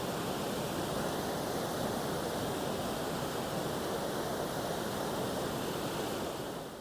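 Steady rush of the River Aire pouring over a weir, the river running high after heavy rain. It fades out near the end.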